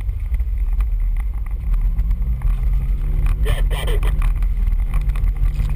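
Off-road 4x4's engine running steadily as it drives along a dirt trail. A voice is heard briefly about halfway through.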